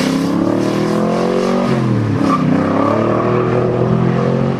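Jeep engine running under load as it crawls over rocks, its pitch rising and falling with the throttle and dipping briefly about two seconds in.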